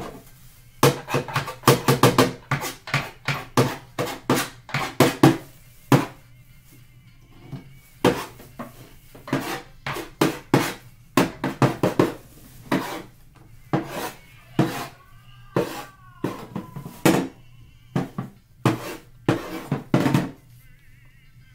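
Crisp crunching of dry cornstarch chunks being bitten and chewed close to the microphone: a dense run of crunches, then irregular crunches every half second or so.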